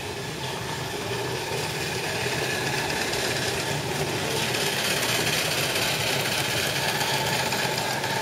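Miniature ride-on train approaching and passing, its engine running and the cars rolling on the track, growing steadily louder.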